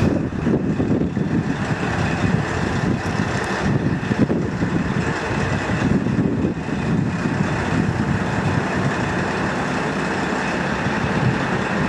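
Steady, rough rumble of a diesel railcar idling at the station, with no clear single events.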